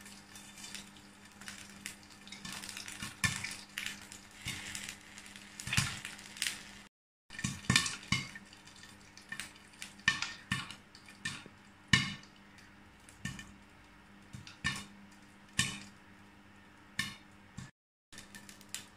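Popcorn kernels popping in a lidded frying pan: sharp, irregular pops, sometimes several close together and sometimes a second apart, over a steady sizzle.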